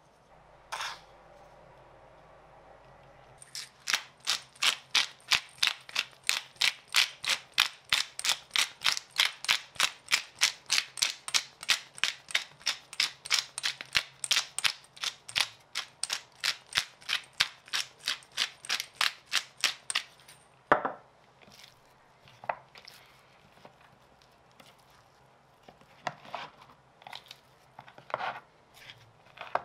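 Hand-turned pepper mill grinding black pepper, a steady crunching click about three times a second that stops abruptly a little past the middle. After that come scattered soft slaps and rustles of raw pork rib pieces being handled on a wooden board.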